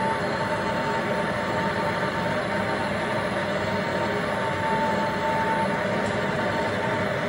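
Gas blowtorch burning steadily with a rushing hiss and a faint whistle that comes and goes, heating copper pipework for a soldered joint.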